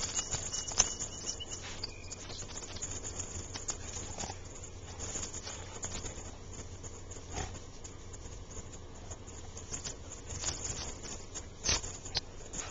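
Two dogs play-wrestling on wood-chip mulch: paws scuffling and pattering on the chips, with scattered sharp knocks as they tussle.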